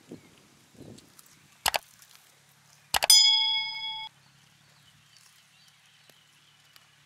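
Subscribe-button animation sound effect: clicks about a second and a half in, then another click at about three seconds followed by a bright bell ding that rings for about a second and cuts off suddenly.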